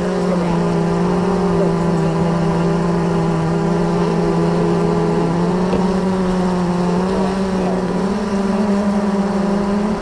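Loud, steady drone of a dense mass of honeybees buzzing right at the microphone inside an opened hive, stirred up by the frames being lifted out during the honey harvest.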